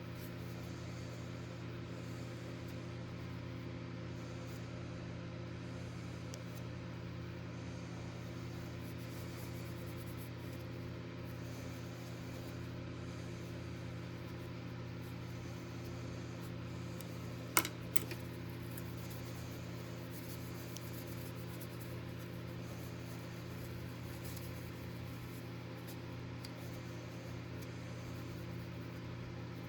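Steady electric motor hum at a constant pitch and level, with a single sharp click a little past the middle.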